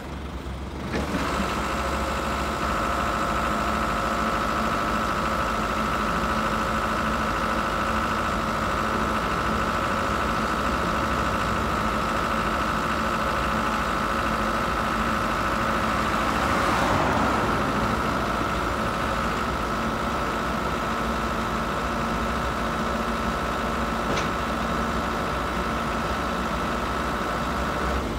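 Aichi SH09A aerial work platform on an Isuzu Elf running steadily as its hydraulics lower and retract the boom, with a steady whine that sets in about a second in. The sound swells briefly around the middle.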